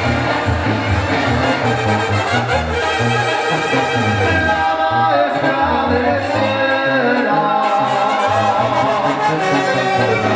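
Latin brass band music with a repeating bass line and sustained horn melodies.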